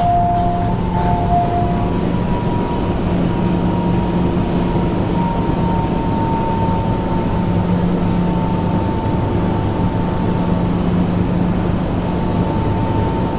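MTR metro train standing at the platform, its on-board equipment humming steadily with a faint high whine over it. Two short beeps sound in the first second and a half as the doors open.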